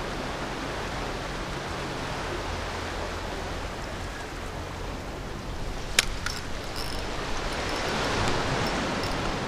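Steady rush of wind and moving inlet water on an action-camera microphone. A sharp click comes about six seconds in, followed by a few lighter ticks.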